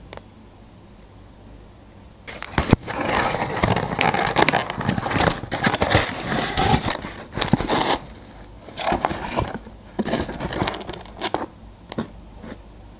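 Cardboard pizza delivery box being pulled open and handled: flaps and tabs scraping, crackling and clicking. It starts about two seconds in, runs steadily for several seconds, then comes in shorter bursts.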